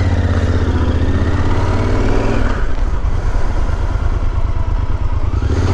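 Yamaha Super Ténéré's parallel-twin engine running as the motorcycle rides at low speed, the note turning rougher and more uneven about halfway through.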